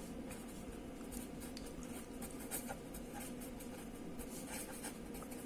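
A pen scratching across paper, writing out a line of words in many short strokes, faint over a low steady hum.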